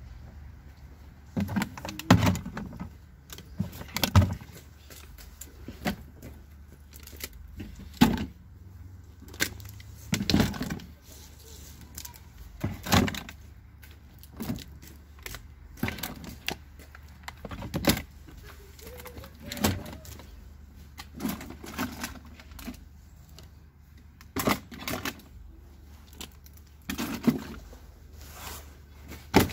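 Liquid-filled plastic bottles knocking against each other and against the inside of a plastic bucket as they are set in one at a time, a sharp knock every second or two.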